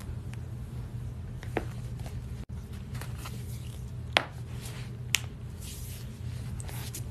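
Joints cracking during chiropractic adjustments: three short sharp pops, about one and a half, four and five seconds in, the one around four seconds the loudest, over a steady low hum.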